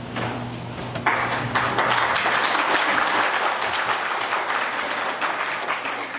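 Audience applauding, building about a second in and dying away near the end.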